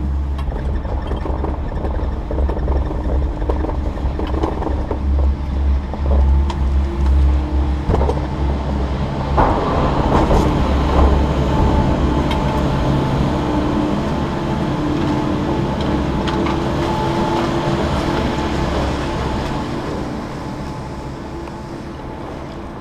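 Doppelmayr detachable chairlift carrying its chair over the last tower and into the top station: a steady mechanical hum and whir with a heavy low rumble. About nine seconds in, as the chair enters the station, the rumble drops away and a brighter, rushing machine noise takes over, then fades slowly near the end.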